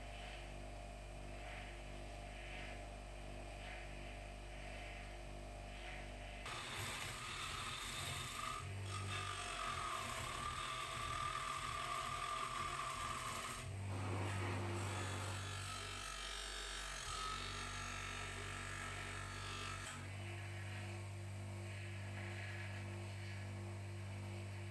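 Electric bench buffer motor running with a steady hum while copper stove parts are pressed against its spinning cloth buffing wheel, adding a rubbing whir that is loudest in the middle. The sound changes character abruptly a few times.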